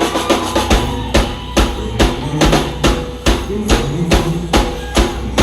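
Rock band playing live between sung lines: the drum kit keeps a steady beat of about two to three hits a second under bass and electric guitar.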